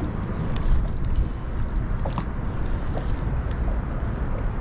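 Wind rumbling on the microphone and water lapping around a small open skiff, with a few sharp clicks, the loudest a little under a second in.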